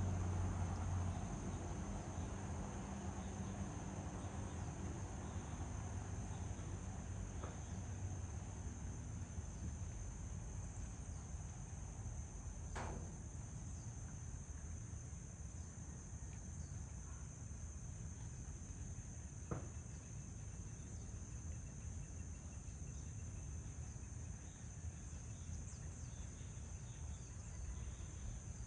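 Insects trilling at one steady high pitch over a low rumble of outdoor ambient noise, with a faint click about halfway through and another later on.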